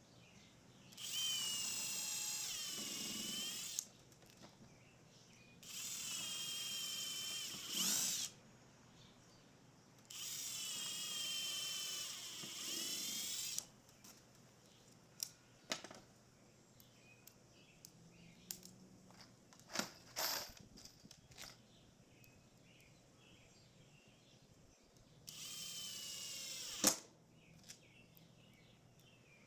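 Power drill running in four separate bursts of a few seconds each, its whine wavering in pitch; two bursts end with a sharp louder jolt. Small clicks and knocks of handling come between the bursts.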